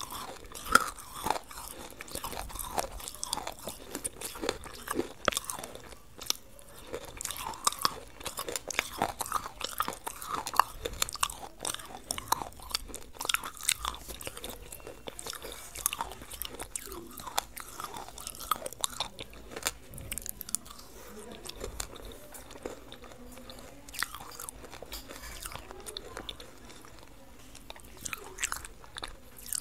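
Close-up crunching bites and chewing of a hard, brittle lump, a steady run of sharp crunches and mouth sounds.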